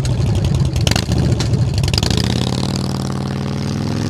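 Harley-Davidson V-twin motorcycle engine revving as it pulls away, its pitch climbing slowly through the second half.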